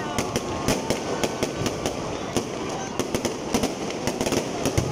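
Fireworks display: aerial shells bursting with dense crackling, rapid irregular sharp pops several times a second over a continuous sizzling crackle.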